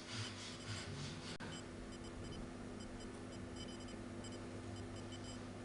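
Faint, irregular electronic beeping of short high tones over a steady low hum.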